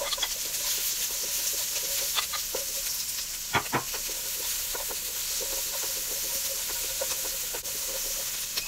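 Diced onion and minced garlic sizzling in melted butter in a wok, stirred with a wooden spatula that scrapes and clicks against the pan, with a sharper knock about three and a half seconds in.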